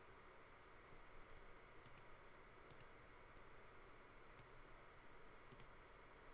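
Near silence with a few faint computer mouse clicks, mostly in quick pairs.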